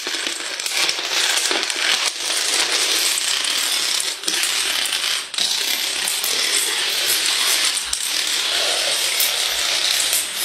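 A long chain of small dominoes toppling one after another: a fast, unbroken clatter of many light clicks.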